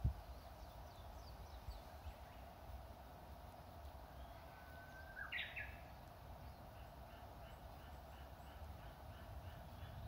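Japanese bush warbler (uguisu) giving one 'hoo-hokekyo' song about five seconds in: a held low whistle that breaks into a quick high flourish. From about six and a half seconds on, short bird notes repeat about three times a second, over faint scattered chirps and a low background rumble.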